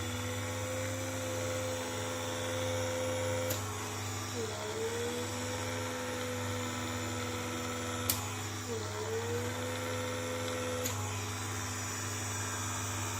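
Handheld pore vacuum's small suction motor running with a steady whine; its pitch dips sharply and recovers about every four and a half seconds. A few sharp clicks sound in between.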